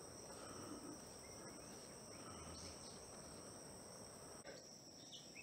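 Faint insect chorus: two steady, high-pitched drones over soft outdoor background noise, with a few faint bird chirps near the end.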